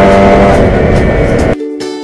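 Two-stroke motorcycle engine running under music, cut off abruptly about a second and a half in. Quieter background music with a steady beat follows.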